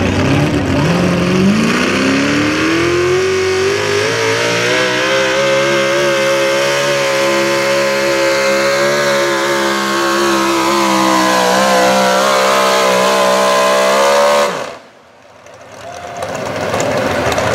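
Modified Chevrolet pickup pulling truck's engine at high revs under full load as it drags a weight-transfer sled. The pitch climbs over the first few seconds and then holds high and steady, until the sound cuts off suddenly near the end.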